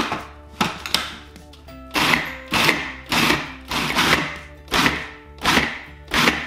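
Food processor pulsed in short repeated bursts, its motor and blade spinning up and stopping each time as it chops a bowl of vegetables and spices, with a click as the lid goes on at the start. Background music plays underneath.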